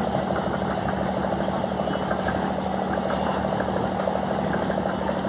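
Boat engine running steadily, a constant low hum with an even, fast rhythmic beat.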